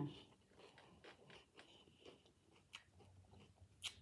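Faint chewing of salad close to the microphone: soft irregular mouth clicks and small crunches, with a sharper click near the end.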